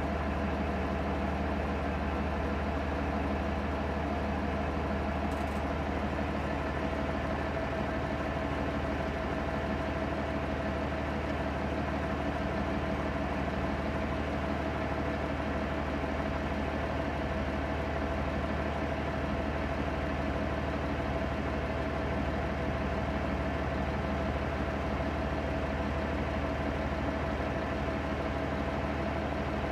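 International 966 tractor's diesel engine idling steadily, heard from inside its cab.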